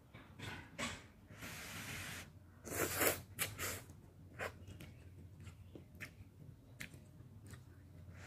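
A person slurping ramen noodles off chopsticks, the loudest slurp about three seconds in, with wet chewing and small clicks between.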